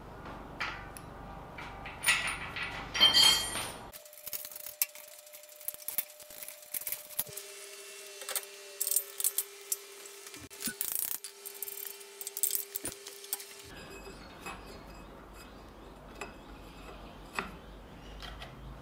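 Metal parts clinking and knocking as a lathe is put together by hand: a bolt, the motor and its pulley fitted to a steel stand. A middle stretch of several seconds holds a steady tone with scattered light clicks.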